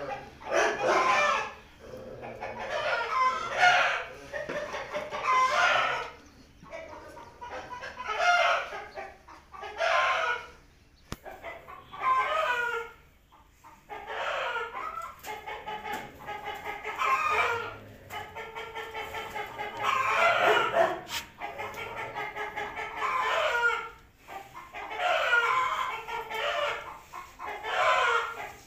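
Chickens calling: a long run of loud crows and clucks, one after another every second or two.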